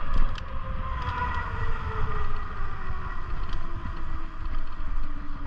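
Wind buffeting the microphone over the whine of an electric bike's motor, which slides steadily down in pitch as the bike slows.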